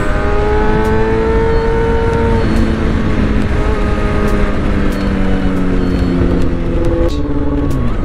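Motorcycle engine accelerating under way, its pitch climbing, dropping at a gear change about two and a half seconds in, climbing again, then falling away near the end as it slows. Wind rushes over the microphone.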